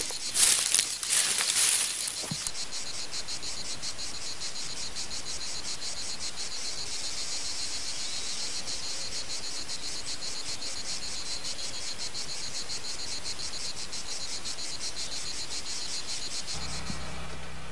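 Insects chirring in a fast, even pulse. In the first two seconds it is joined by footsteps rustling and crunching through dry grass. Near the end the chirring cuts off and gives way to a low hum.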